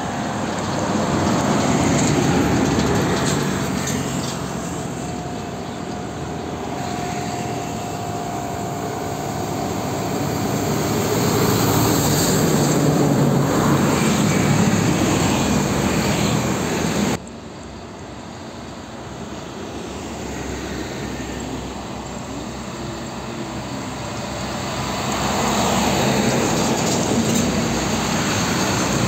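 Heavy diesel trucks passing close by, engine and tyre noise swelling and fading as each goes past. The sound drops abruptly about two-thirds of the way through, then builds again as another truck approaches.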